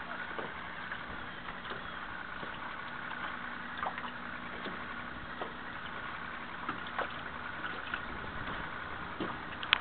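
Distant motorboat engine idling steadily, a low even hum with a few faint clicks scattered through it.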